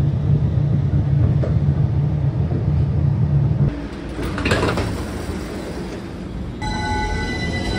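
DC Streetcar light-rail tram running, a strong steady low rumble heard from inside the car, which stops abruptly a little over halfway through. A brief sharp sound follows, then, from about two-thirds of the way in, the standing tram's steady high electrical tones, with a rising whine near the end.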